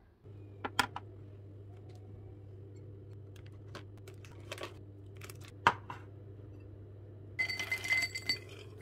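Scattered clicks and one sharp knock of tableware being handled, then cashews poured into a bowl, rattling for about a second near the end, over a steady low hum.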